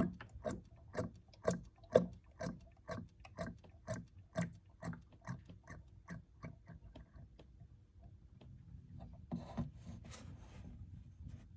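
Motor oil glugging out of a 5-litre plastic jug into a funnel, about two gulps a second that come quicker and fainter as the jug runs empty, stopping about seven seconds in. A short rustle of handling follows near the end.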